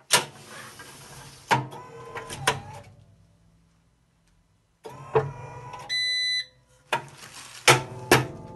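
Automatic table-top tray sealer running one sealing cycle. Sharp metallic clunks and a mechanical running sound come as the machine closes, then a quiet pause of about two seconds while it heat-seals the lidding film. A short electronic beep follows, then more clunks as it opens again.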